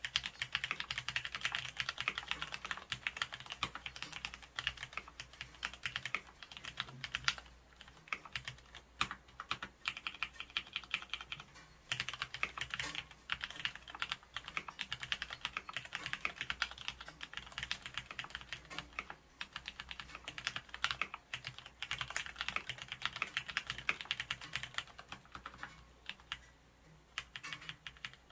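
Fast, continuous typing on a full-size mechanical keyboard with lubricated Cherry MX Red linear switches on stock springs, a dense stream of key clacks with a few short pauses.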